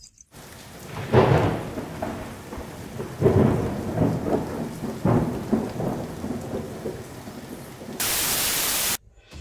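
Thunderstorm sound effect: steady rain with three loud thunderclaps that roll and fade, about one, three and five seconds in. Near the end a second-long burst of even static hiss starts and cuts off abruptly.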